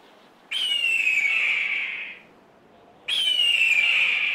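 A hawk giving two long, hoarse screams about two and a half seconds apart, each sliding down in pitch.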